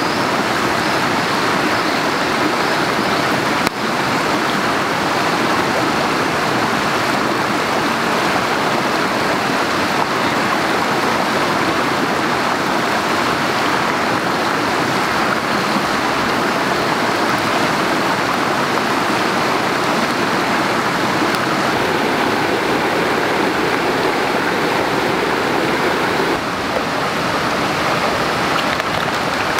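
Steady rushing of running water, an even noise with no distinct events.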